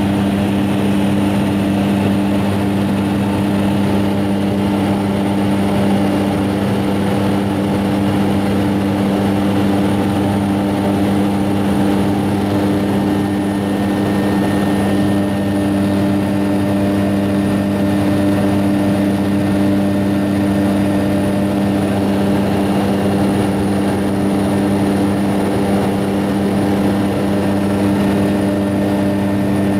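Light propeller aircraft's engine and propeller running steadily in flight, heard from inside the cabin as an even, pitched hum.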